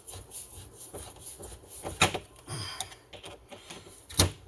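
Chainsaw recoil starter parts being handled and fitted back together: scattered small clicks and knocks, with two sharp knocks, one about two seconds in and one near the end, and a short scrape between them.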